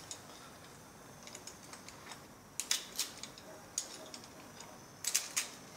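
Hand-held metal olive pitter clicking as it is squeezed to punch holes in dried limes: a few sharp, irregular clicks.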